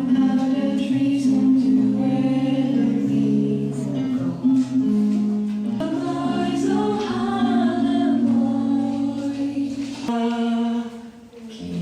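Music with singing voices, held notes over a steady accompaniment.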